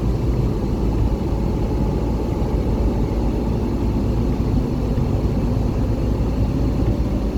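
Car driving along a road: steady low rumble of engine and tyre noise, with no distinct events.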